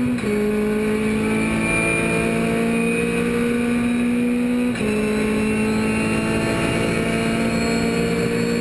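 Race car engine heard from inside the cockpit under hard acceleration, its note climbing slowly, with two upshifts where the pitch drops suddenly: one just after the start and one about halfway through.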